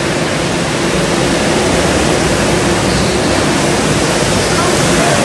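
Several go-kart engines running together around an indoor track, a loud, steady wash of engine noise filling the hall.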